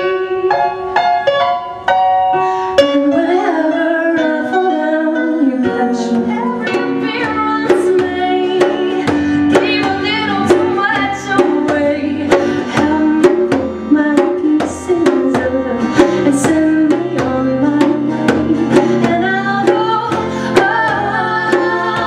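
Live music: a woman sings, first over a few keyboard notes, then from about six seconds in over a steady low drone from a strummed string instrument, with a hand drum struck in a quick rhythm.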